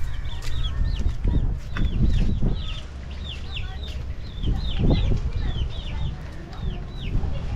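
Chickens peeping: a long run of short high calls, each dropping in pitch, several a second. Low rumbling bursts come about a second in and again near five seconds in.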